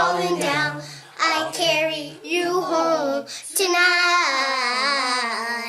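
A high voice sings a melody in short phrases. It ends on a long note held for about two seconds with a wavering pitch.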